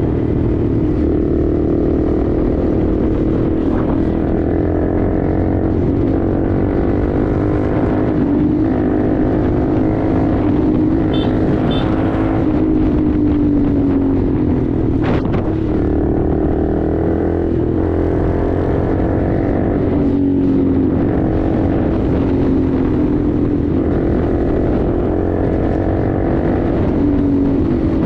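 Honda Grom's single-cylinder four-stroke engine running through an aftermarket Toce exhaust while riding, its pitch rising and falling again and again as it pulls up through the revs and eases off. A sharp click about fifteen seconds in.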